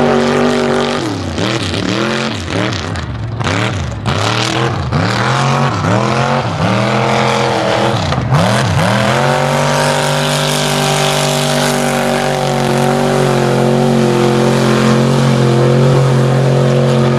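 Mud-bog truck engine at high revs, its pitch dipping and climbing back over and over, about once a second, as the tires dig through the mud. After about nine seconds it holds steady at high revs.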